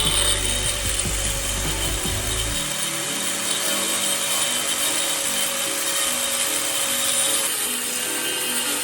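Electric power tool running steadily at constant speed, with background music.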